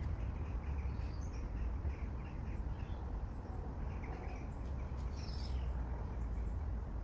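Birds chirping in short scattered calls over a steady low rumble, with a brief higher call about five seconds in.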